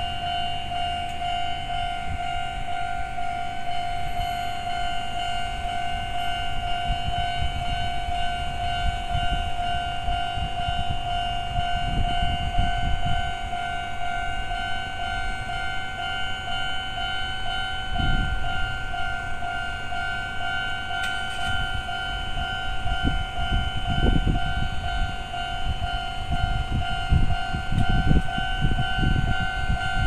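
Japanese railway level-crossing alarm sounding its old-type standard electronic bell tone, a steady repeating ding. Low rumbling noise comes and goes underneath, strongest near the end.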